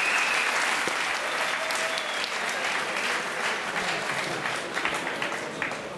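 Arena crowd applauding, dense clapping that thins out a little toward the end.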